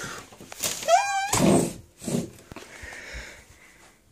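A sliding window being pushed open along its track: rubbing and scraping, with a short wavering squeal about a second in.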